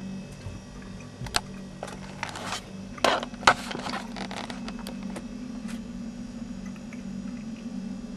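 Handling noise from a handheld camcorder being moved about: a run of clicks and knocks, loudest about three to three and a half seconds in, over a steady low hum.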